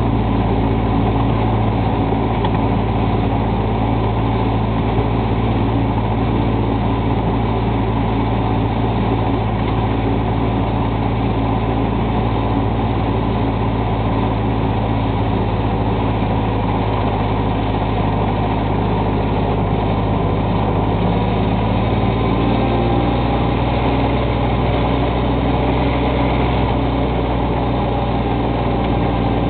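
Miniature railway locomotive's engine running steadily as it hauls along the track.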